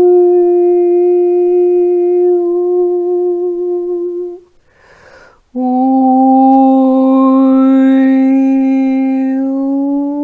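A woman's voice toning, holding one long steady sung note. About four and a half seconds in she breathes in, then holds a lower note that starts to glide upward near the end.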